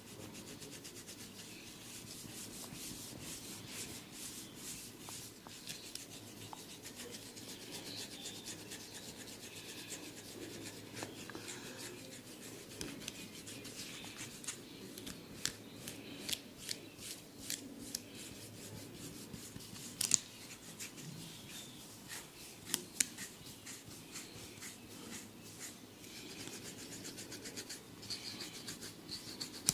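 Hair and scalp being rubbed and scratched in a head massage: steady rubbing with frequent sharp crackling clicks, thicker in the second half, with a few louder snaps.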